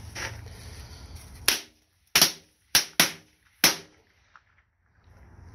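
Small firecrackers: a lit fuse sizzles for about a second and a half, then five sharp, loud bangs go off in quick succession over about two seconds.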